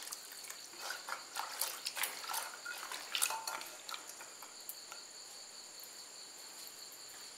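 Water poured from a steel vessel into a pressure cooker of chickpea and tapioca curry, with a steel ladle stirring and clicking against the pot during the first few seconds. Crickets chirp steadily in the background, heard alone after the stirring stops.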